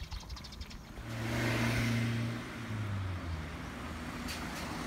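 A car passing close by: its engine and tyre noise swell to a peak about a second and a half in, then the engine note drops in pitch as it goes away and fades.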